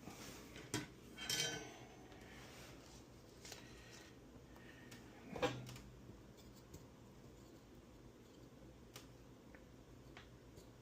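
A few light metallic clicks and taps of small hand tools on guitar wiring. The loudest comes about five and a half seconds in, then only faint room tone.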